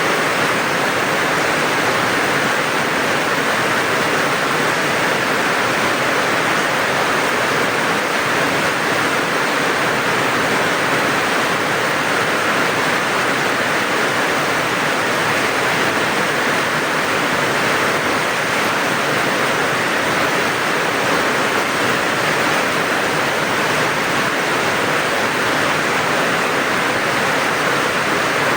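Steady heavy rain, a dense, even hiss that holds unchanged throughout.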